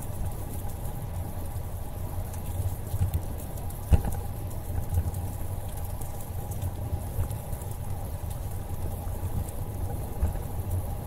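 Ride noise on a bicycle-mounted camera moving along a paved trail: a steady low rumble of wind on the microphone and tyres on asphalt, with a sharp knock from a bump about four seconds in.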